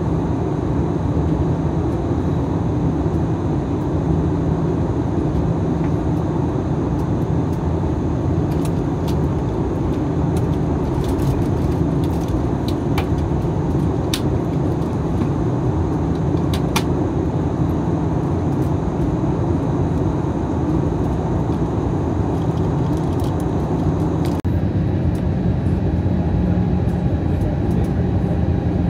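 Airbus A320 cabin noise during descent: the steady roar of the jet engines and rushing air, heard from a window seat. A few faint clicks come midway, and the high hiss drops slightly near the end.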